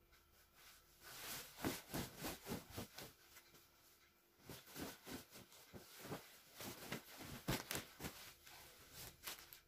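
Rustling and swishing of a large white bedding fabric being handled, unfolded and shaken out in irregular strokes, with a short lull partway through.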